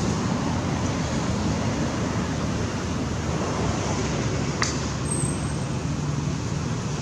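Steady rushing outdoor background noise, with one brief high chirp about four and a half seconds in.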